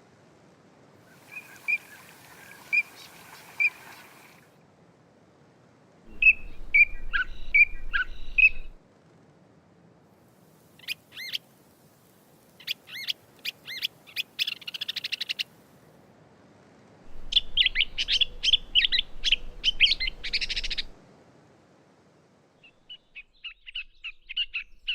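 Gray catbird singing in four separate passages of a few seconds each, with pauses between. Short clear notes, warbled phrases, rapid rattling clicks and fast chattering runs, mixing imitations of other species into its song.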